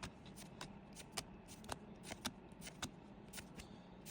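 Faint, irregular clicks and light rustles of Pokémon trading cards and their packaging being handled.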